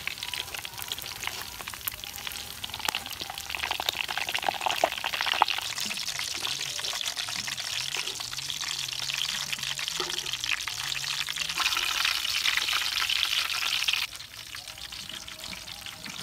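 Oil sizzling and crackling as a battered whole chicken deep-fries in a steel wok, with sharp clicks from metal tongs turning it. The sizzling cuts off suddenly about two seconds before the end.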